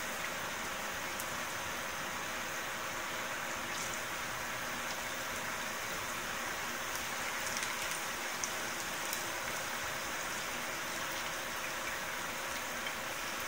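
Onion and carrot tempura frying in shallow oil in a frying pan: a steady sizzle with scattered small pops, a little livelier around the middle.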